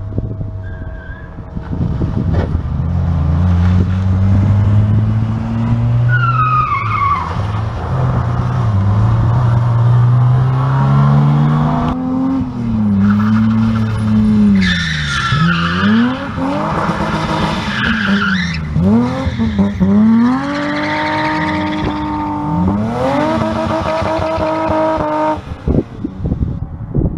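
Classic rally cars driving past one after another on a rally stage, their engines revving hard, pitch climbing and dropping again and again through gear changes. The engines cut away about a second before the end.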